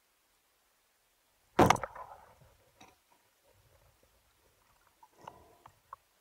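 A band-powered speargun firing underwater: one sharp, loud crack about a second and a half in as the rubbers release the shaft. Fainter clicks and knocks follow, from the slack bands, the shaft and the line.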